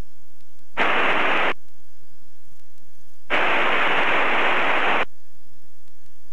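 Two bursts of static hiss over the aircraft radio in the pilot's headset, each switching on and off sharply: a short one about a second in, then a longer one of nearly two seconds.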